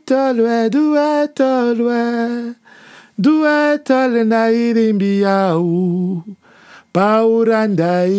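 A man's voice singing a slow melody unaccompanied, in three long phrases, each sinking lower in pitch.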